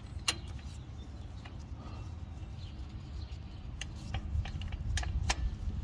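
Scattered light metallic clicks of steel drum-brake hardware, the adjuster spring, cable hook and adjuster lever, as they are worked toward the hole in the brake shoe. The clicks come mostly in the second half, over a steady low rumble.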